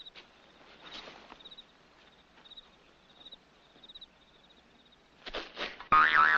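Old film soundtrack going quiet, with faint soft scuffles and a repeating high chirp, then about a second before the end a sudden loud, warbling boing-like comedy sound effect.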